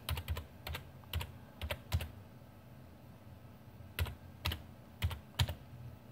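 Keys tapped one at a time on a computer keyboard while typing a web address: a run of taps, a pause of about two seconds, then four more taps about half a second apart.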